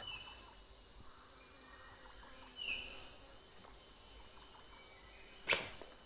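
Faint rainforest background with a brief chirp about two and a half seconds in, then a single sharp puff near the end: a bamboo blowpipe firing a poison dart.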